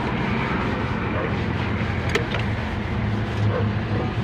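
Carburetted Mitsubishi 4G15 four-cylinder engine idling steadily and evenly at about 800 RPM, its carburettor cleaned and adjusted so it no longer runs rich.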